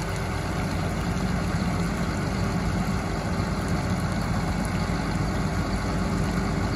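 Self-propelled crop sprayer's diesel engine idling steadily while the boom sections are flushed through with clear water.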